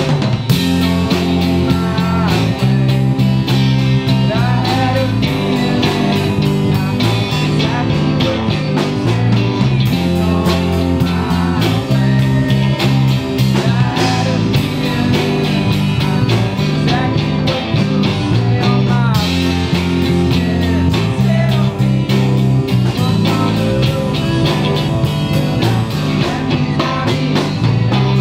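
Live rock band playing a song: guitars, bass and drums, with a singer's voice over them.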